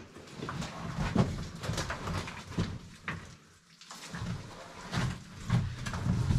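Scuffling and scraping of boots and clothing against rock, with small knocks, as a person clambers past a rock-filled ore chute in a mine drift. It goes quiet for a moment about halfway through.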